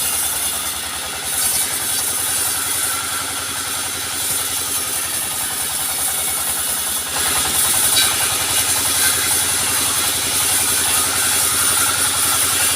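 Sawmill machinery's engine running steadily with a fast even throb, becoming louder and fuller about seven seconds in.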